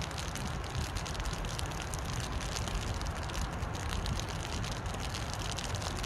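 Rain falling steadily on a river: a dense, fine patter over a steady low rumble.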